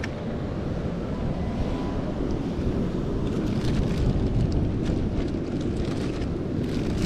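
Wind buffeting the microphone in a steady low rumble, with a plastic bag crinkling faintly as it is handled about halfway through and again near the end.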